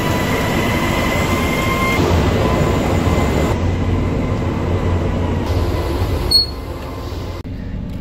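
Paper mill machinery running: a loud, steady rumble and hiss with a faint whine. It changes abruptly at several cuts and drops quieter about six and a half seconds in.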